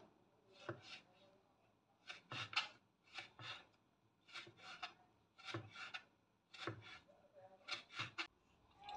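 Chef's knife slicing peeled ginger into thin strips on a bamboo cutting board: a run of short knife strokes against the wood, often in pairs, about one pair a second.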